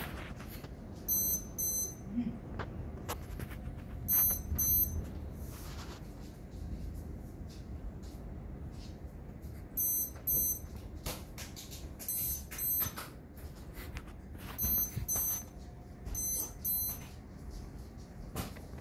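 Lightning detector beeping in pairs, six double beeps spread irregularly through the stretch. Each pair signals a lightning strike within 15 miles. Underneath is a steady hiss of heavy rain.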